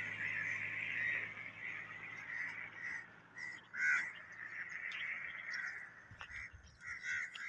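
Crows cawing, a series of short calls at irregular intervals, the loudest about four seconds in. A passing car's low hum dies away in the first second or so.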